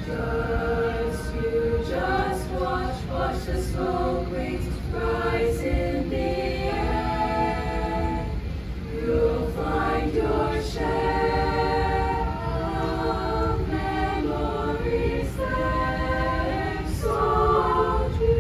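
A choir singing a cappella in several-part harmony, phrase after phrase with brief breaks between them, over a steady low rumble.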